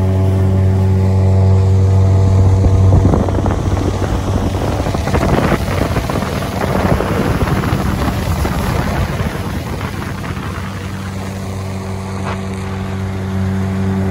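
Speedboat engine running at a steady pitch. From about three seconds in until about eleven seconds, a loud rush of wind and water drowns out most of its hum.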